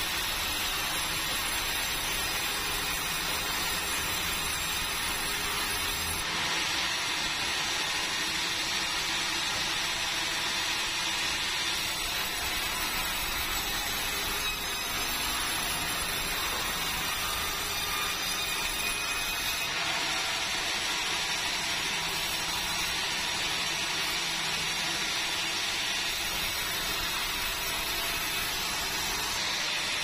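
Sawmill band saw cutting a hardwood log of bengkirai (yellow balau) on its carriage: a loud, steady sawing noise that shifts in tone several times as the cut goes on.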